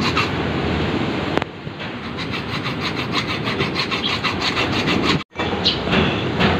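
Stainless steel rod being cut by hand with a hacksaw, quick steady rasping back-and-forth strokes. The strokes falter briefly about a second and a half in and break off abruptly about five seconds in.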